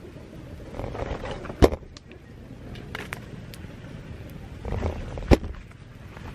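Open wood fire of sticks and dried leaves burning with a steady rush and a few crackles. Two loud sharp pops come about one and a half seconds in and again near the end, each after a brief swell of flame noise.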